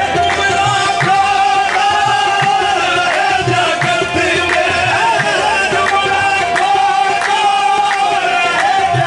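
Qawwali music: male singing over held instrumental tones and a steady percussion beat.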